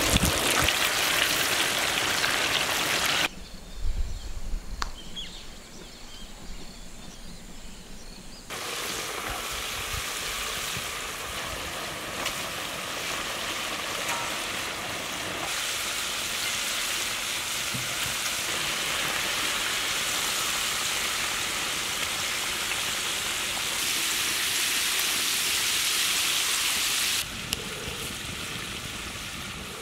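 Hot oil sizzling as flour-coated chicken pieces deep-fry in a large wok: a dense, steady hiss that changes abruptly at several cuts, with a quieter stretch of a few seconds starting about three seconds in.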